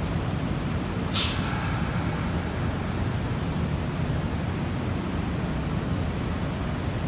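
Steady low rumble of an electric train standing at a station platform, with a short, loud hiss of compressed air from its brakes about a second in.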